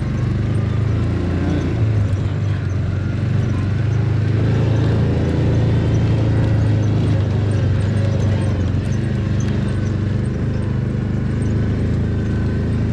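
Side-by-side UTV engine running steadily in low gear as it is driven through snow.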